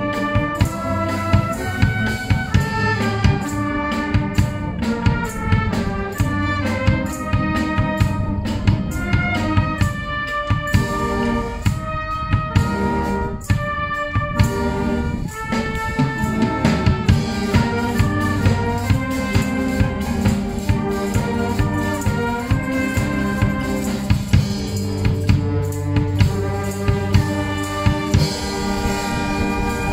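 A wind band playing live: brass and woodwinds over a drum kit with a steady beat, holding a long chord near the end.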